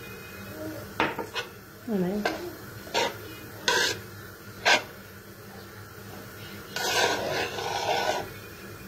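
Hands rubbing and mixing a crumbly rfiss mixture in a large bowl. A spoon and the bowl clink sharply about five times, then there is a longer stretch of scraping and rustling near the end.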